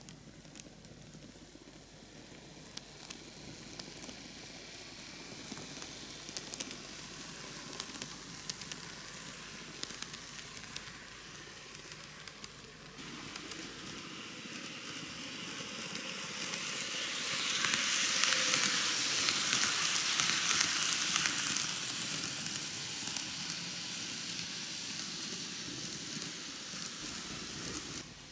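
N-gauge model train (Microace Seibu 4000 series four-car set) running on sectional track: a steady hissing rattle of wheels and motor with scattered sharp clicks, growing louder about halfway through and loudest for a few seconds before easing off.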